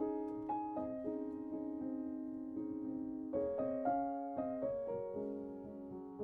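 Background music: a gentle piano piece, single notes and chords struck and left to fade.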